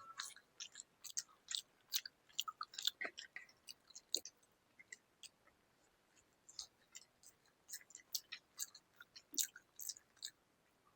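A person chewing food: irregular sharp mouth clicks and chewing noises, thinning out for a couple of seconds in the middle.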